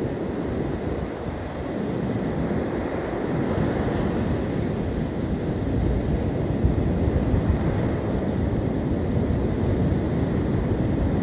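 Sea surf breaking on the beach mixed with wind buffeting the microphone: an even rushing noise, heaviest in the low end, growing a little louder over the first few seconds.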